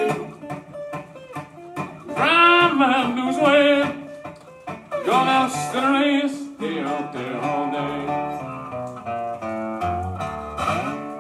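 A man singing delta blues to his own acoustic resonator guitar. The voice drops out about six and a half seconds in, leaving a guitar passage, and comes back briefly near the end.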